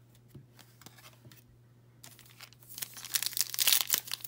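A few light taps of cards being handled, then from about two and a half seconds in, the foil wrapper of a Panini Contenders football card pack crinkling loudly as it is torn open.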